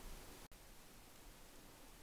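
Near silence: faint room tone and hiss.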